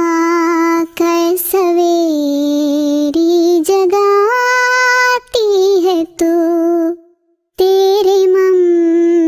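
A child's voice singing slow, long held notes that slide and waver between pitches, with a short break about seven seconds in.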